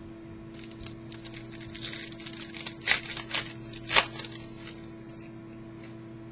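Football trading cards being handled: card stock rustling and sliding, with a run of light clicks and two sharper snaps about three and four seconds in.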